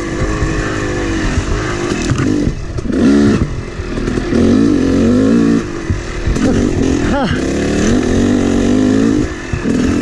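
Yamaha YZ250X two-stroke dirt bike engine under way, its pitch rising and falling with the throttle. There are short drops where the throttle is rolled off, and a quick rev sweep about seven seconds in.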